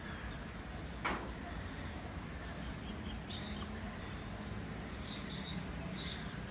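Outdoor ambience: steady low background noise with short, high bird chirps from about three seconds in, and a single sharp click about a second in.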